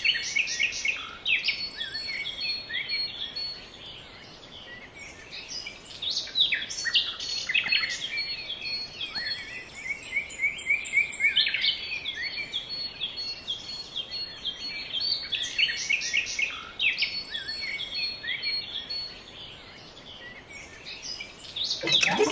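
Birds chirping: many short, quick calls overlapping, easing off briefly twice, about four seconds in and again near the end.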